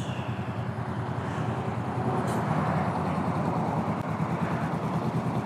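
Motorcycle engine running with a rapid, even pulse, getting a little louder about two seconds in.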